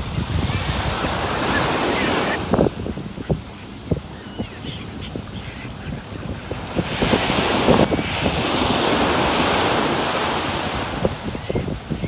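Waves washing ashore in two swelling surges, with wind buffeting the microphone and a few faint bird calls.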